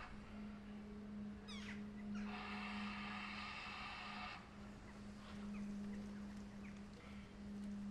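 Small birds chirping in short quick falling phrases, loudest a second and a half in and fainter a few times later. Under them runs a steady low hum, and a steady many-toned sound that switches on for about two seconds midway.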